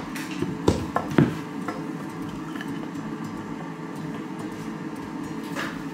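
Wooden Stokke Tripp Trapp high-chair parts knocking against each other as they are handled and set down, with two clear knocks about a second in and fainter handling clicks after, over a steady low hum.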